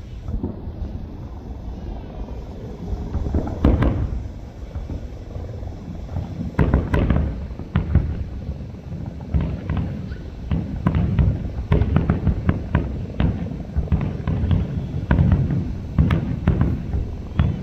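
Aerial fireworks display: heavy booms of shells bursting about 4 and 7 seconds in over a continuous low rumble, then a quick run of sharp crackling pops through the second half.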